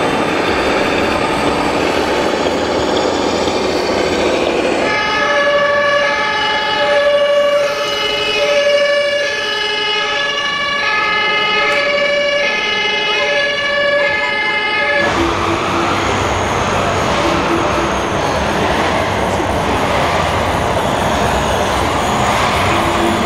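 A scale RC model fire engine's electronic siren sounds for about ten seconds, alternating between two tones, then cuts off. Before and after it, the rumbling engine sound of RC model trucks runs.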